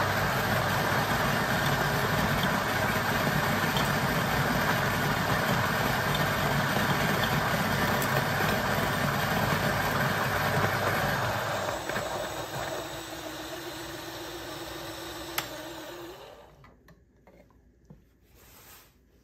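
Niche Zero single-dose conical-burr grinder grinding a 15.8 g dose of coffee beans: a loud, steady grinding for about eleven seconds, then the sound thins to a quieter motor hum as the burrs run empty, stopping about sixteen seconds in. A small clink of the metal dosing cup near the end.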